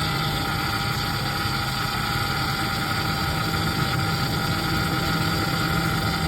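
Ford F-150 5.4 Triton V8 idling with a steady whine from the power steering, which the owner puts down to low power-steering fluid. The whine cuts off abruptly at the very end.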